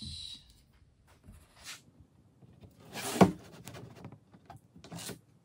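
Pencil scratching and a steel framing square sliding and knocking on a sheet of hardboard while lines are marked out. The loudest sound is one sharp knock about three seconds in, with a few short scratchy strokes around it.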